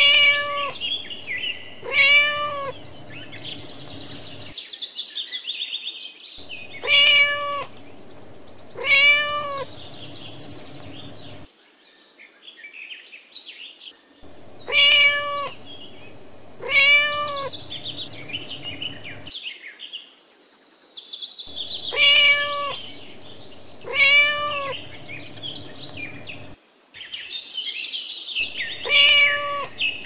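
A cat meowing loudly in pairs of meows about two seconds apart, the pair recurring about every seven seconds in an identical repeating pattern, over high bird chirping.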